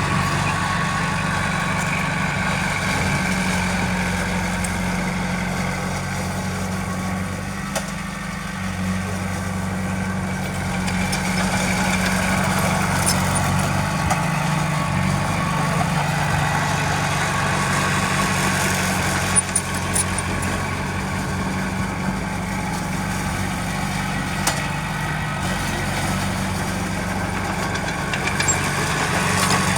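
Heavy earthmoving machine's diesel engine running steadily at a low, even speed, with a brief sharp knock about two-thirds of the way in.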